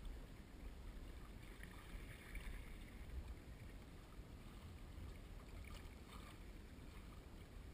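Faint water sloshing against a kayak's hull, with a low steady rumble of wind on the microphone and a slightly louder wash about two seconds in.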